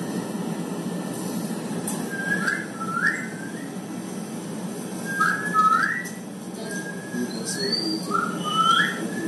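Short rising whistle-like chirps, mostly in pairs, repeated several times over a steady low hum.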